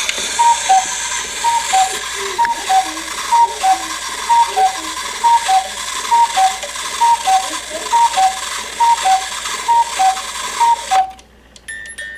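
Cuckoo clock calling, its falling two-note cuckoo repeated about a dozen times at an even pace over a steady hiss from its bellows. A music-box tune starts near the end.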